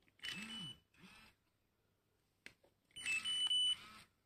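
Electronic carp-fishing bite alarms (DAYO KUGAR set) sounding two bursts of steady high beeping, each about a second long, around three seconds apart. They are set off by hand to simulate a bite.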